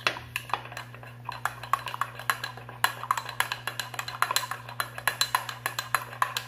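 A spoon stirring a thick honey, lemon and cinnamon syrup, clinking and scraping against the side of its container in quick, uneven taps. The stirring is vigorous because the cinnamon forms small lumps that don't dissolve easily.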